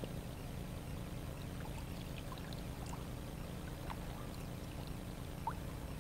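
Water trickling and dripping around an inflatable kayak moving on the river, with scattered small plinks and one clearer plink near the end, over a steady low rumble.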